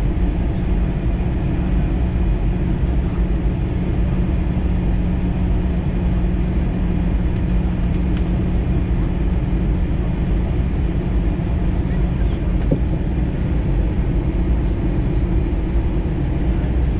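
Steady cabin noise inside an Airbus A320 in flight: the even rush of air past the fuselage and the engine drone, heavy in the low end with a constant low hum.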